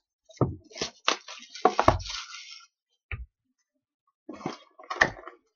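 Trading card packs and their box being handled and opened: rustling and crinkling packaging in short bursts, with a dull knock about three seconds in.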